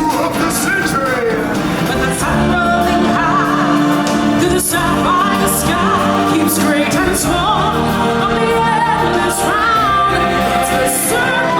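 Music from a live stage show: voices singing long, wavering notes over drums and a band.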